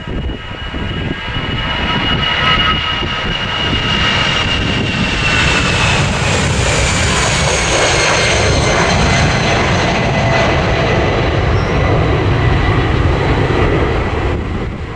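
Airbus A319-111's twin CFM56 turbofan engines at take-off thrust as the jet rolls, lifts off and climbs away close by: a loud, steady jet noise that builds over the first couple of seconds, with a high fan whine that slowly falls in pitch as the aircraft passes.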